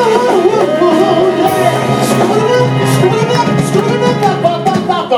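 Live Motown cover band playing, with a lead singer's voice over the band.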